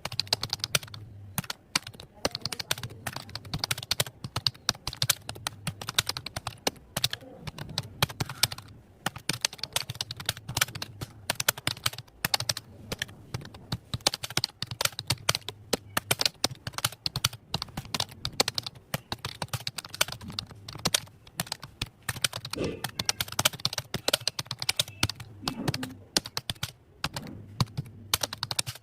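Fast, continuous typing on a computer keyboard: a dense, uneven stream of keystroke clicks during a timed typing test, with a low hum underneath.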